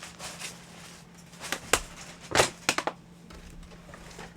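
An office chair's gas lift sinking under its occupant: a few sharp clicks and knocks around the middle, over faint rustling.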